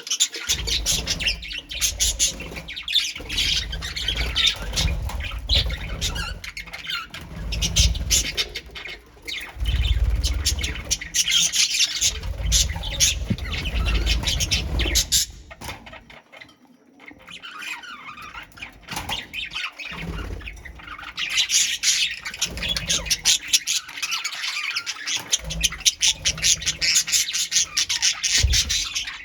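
A colony of pet birds chattering and squawking together in a dense, rapid stream of calls, thinning briefly a little past halfway. Low rumbling noise comes and goes through the first half.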